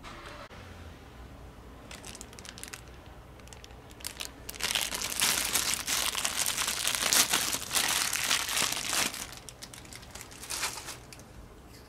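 Thin clear plastic parts bag crinkling as it is handled and the replacement pressure-washer coupling is taken out of it. The crinkling is faint at first, loud and continuous from about four and a half seconds in to about nine, then comes in a few short bursts near the end.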